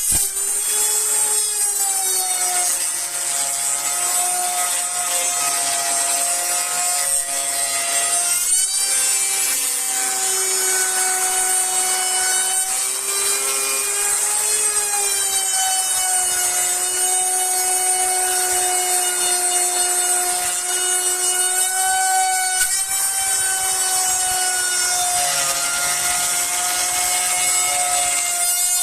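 Hand-held electric wood router running continuously, cutting into the log wall along a template, with a steady high whine over the noise of the bit chewing wood. The pitch sags briefly about eight seconds in as the bit takes more load, then recovers.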